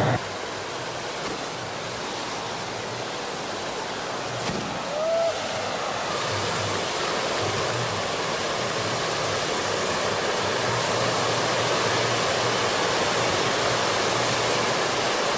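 Hand-held bamboo-tube firework (tezutsu hanabi) spouting its pillar of fire: a steady rushing hiss that slowly grows a little louder.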